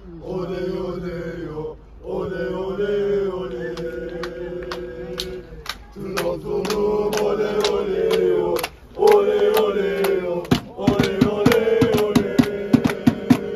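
A group of male football supporters chanting together in long held phrases, with scattered hand claps. From about ten seconds in, the claps become steady rhythmic clapping under the chant.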